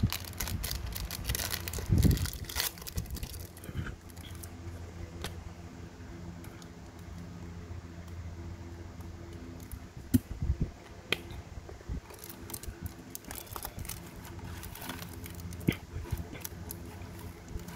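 Zippo lighters being handled: scattered small metallic clicks and knocks, a few of them sharper, over a faint steady low hum.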